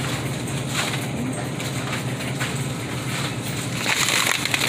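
Grocery store background with a steady low hum, scattered small clicks and rustles, and a louder burst of rustling about four seconds in.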